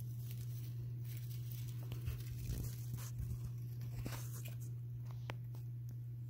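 Winter white dwarf hamster scrabbling over wood-shaving bedding: soft rustling with scattered small crackles and ticks, over a steady low hum.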